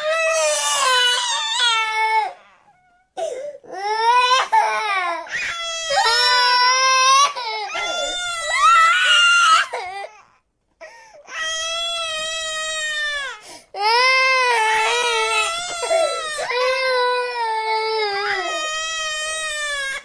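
Cartoon child characters crying: a run of long, high-pitched wailing sobs that waver in pitch, broken by a few short pauses for breath.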